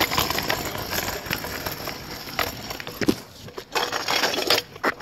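Crackling, rustling handling noise on a phone microphone, many small irregular clicks over a steady hiss.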